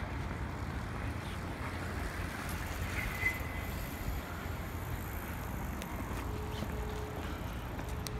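Steady low rumble of city street traffic, with a short high squeak about three seconds in.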